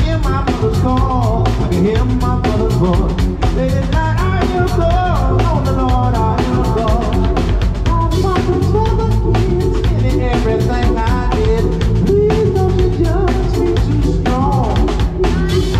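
Live band playing a groove with drum kit, electric bass and keyboards, and a bending melodic lead line on top.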